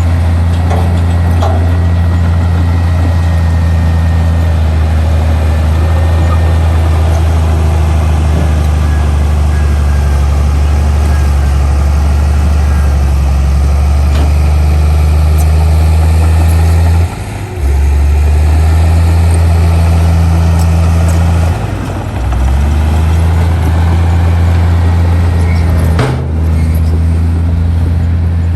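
Heavy diesel engine of earthmoving machinery running steadily at a constant low pitch, dropping briefly three times, with a sharp click at the last dip.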